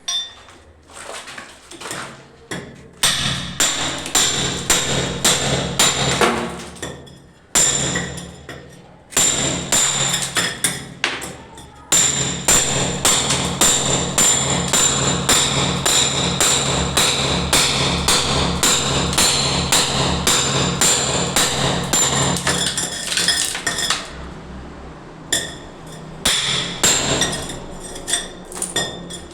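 Repeated hammer strikes, about two to three a second, with a high metallic ring, in runs broken by short pauses; a steady low hum runs underneath.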